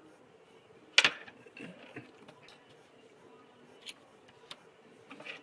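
Small hand tools and parts clicking and tapping as an iPhone 6 is taken apart: one sharp click about a second in, then a few lighter clicks and taps.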